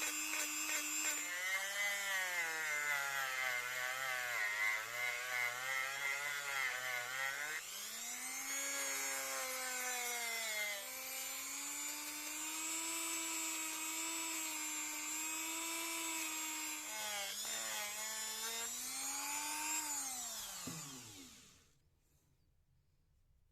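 A small power tool's motor running, its pitch sagging and recovering as it is loaded. It then winds down and stops about 21 seconds in.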